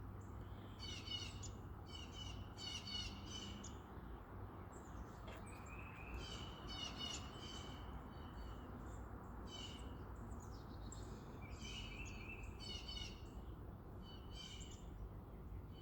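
Wild songbirds chirping and singing in short, repeated phrases, faint, over a steady low background noise.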